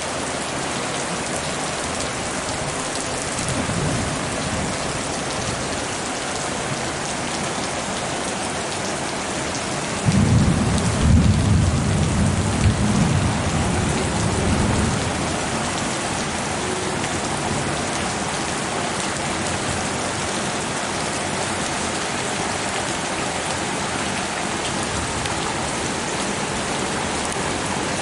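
Heavy rain falling steadily in a thunderstorm. A faint rumble of thunder comes about four seconds in, and a louder roll of thunder rumbles from about ten seconds in for about five seconds.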